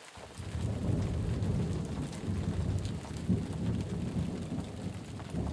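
Steady rain falling, with scattered drops over a low, rolling rumble. It fades in over about the first second.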